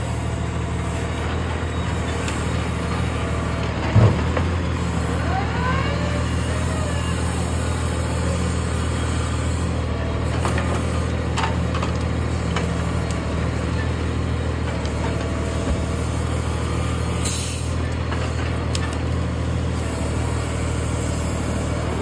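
Grapple truck's diesel engine running steadily as the Serco 8500 loader's hydraulics work the boom and grapple, with a loud sharp knock about four seconds in and a short hiss near the end.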